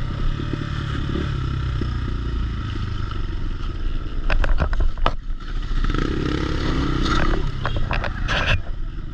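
Dirt bike engine running at low revs, with a burst of sharp knocks and scraping about four to five seconds in as two dirt bikes bump together, then the engine revs up and down briefly, and a few more knocks near the end.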